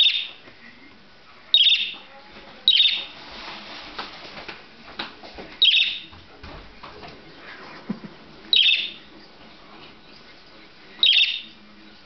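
Budgerigar calling: six sharp, loud chirps a couple of seconds apart, with softer chatter between the early ones.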